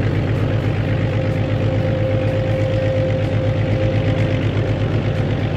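Excavator engine sound effect: a heavy engine idling steadily with a fast low rumble and a faint steady hum above it.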